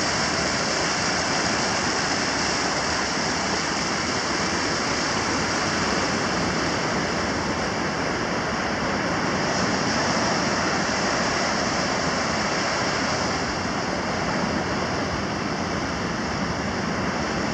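Steady wash of ocean surf breaking on a sandy beach, mixed with shallow creek water running over rocks into the sea.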